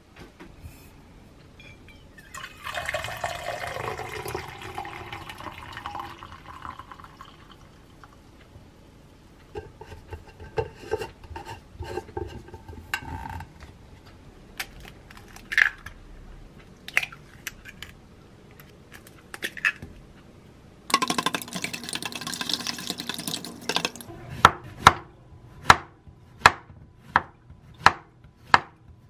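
Liquid pouring for a few seconds, then light clicks and knocks of a tumbler being handled. Near the end a kitchen knife slices a zucchini on a wooden cutting board in sharp, regular strokes about twice a second.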